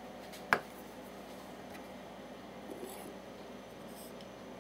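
Small handling sounds of reloading gear: one sharp click about half a second in, then a faint hiss of powder being poured from the scale pan into a brass rifle case near the end.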